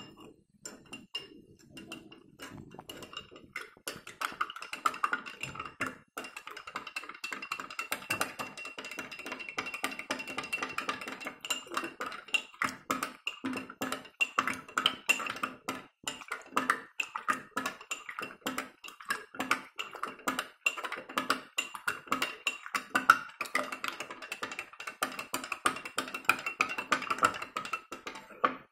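A spoon stirring starch into water in a drinking glass: rapid clinking against the glass, several strikes a second, with the glass ringing.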